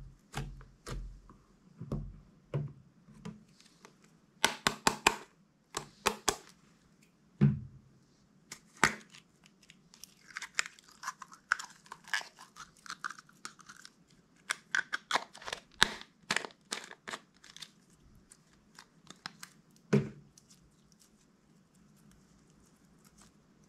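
Slime being squished, stretched and pressed by hand, giving irregular sticky pops and crackles in clusters.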